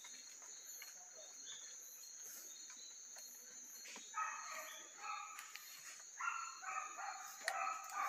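Hunting dogs barking and baying in short repeated bursts, starting about four seconds in, over a steady high-pitched drone of night insects.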